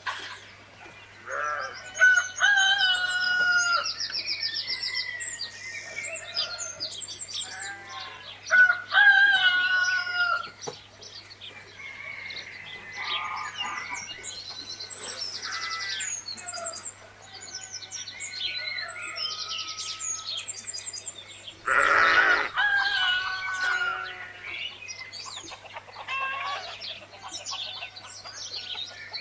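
Farmyard sound: roosters crowing several times, loudest about two and nine seconds in, over steady chirping of small birds. There is a brief noisy burst about two-thirds of the way through.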